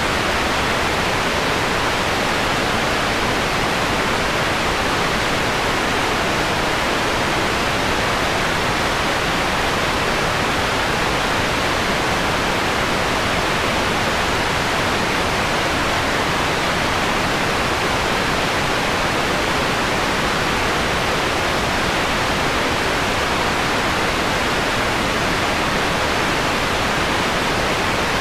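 Synthetic white noise, steady and even, with its top end softened toward a mellower, pink-noise-like hiss.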